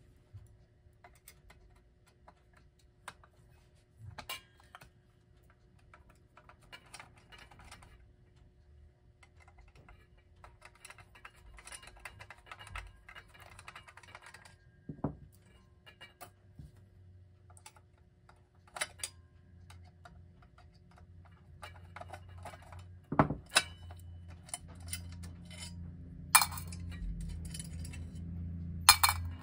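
Small clicks and fine scraping of a screwdriver backing out the two screws that hold a Jefferson Golden Hour clock's dial ring to its base, with a few sharper knocks near the end.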